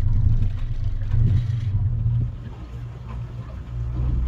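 A boat's engine running steadily with a low hum, heard from inside the cabin. It quiets about two seconds in, then comes back louder and deeper near the end.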